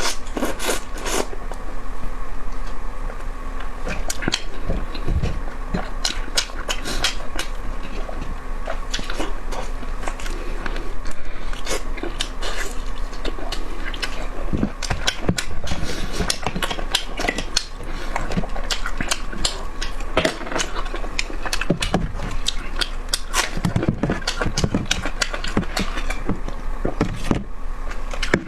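Close-miked mouth sounds of eating sweet and spicy chicken: biting and chewing with a dense run of short sharp clicks and crackles, over a faint steady hum.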